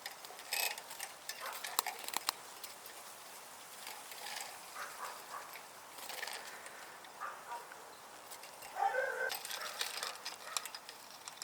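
Caged goldfinches chirping and twittering in short, scattered calls, with light clicks and rustling between them.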